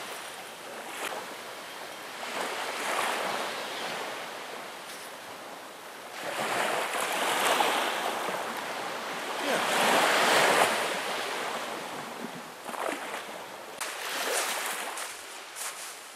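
Small sea waves washing onto the shore, swelling and fading several times, the biggest wash about ten seconds in.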